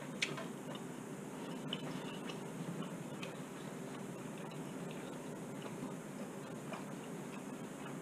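Quiet kitchen room tone with a few faint, irregular clicks and soft handling noises as a bread roll sandwich is lifted off a plate.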